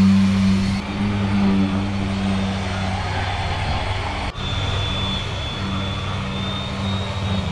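Electric random orbital sanders running steadily as they sand the fiberglass hull bottom with 120-grit paper, a continuous motor hum that shifts abruptly about a second in and again about four seconds in.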